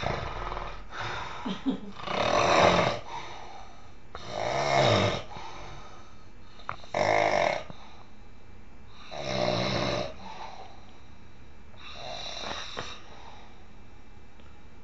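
A sleeping young man snoring heavily, about five rasping snores at roughly two-and-a-half-second intervals, growing fainter toward the end. The snoring sounds laboured, as if air is not getting in well.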